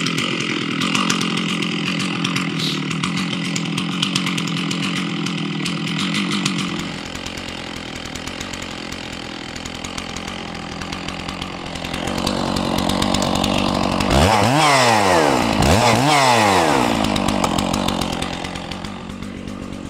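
Stihl MS660 two-stroke chainsaw running at idle on the ground with its chain brake on. The engine note drops a little about a third of the way in, then surges up and back down twice near the end: the saw starting to rev up on its own as it runs out of gas, close to stalling.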